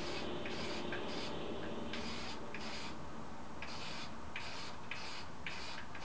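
Aerosol can of Dupli-Color HWP103 clear wheel coating spraying in short hissing bursts, about nine in six seconds, each under half a second. A steady low hum runs underneath.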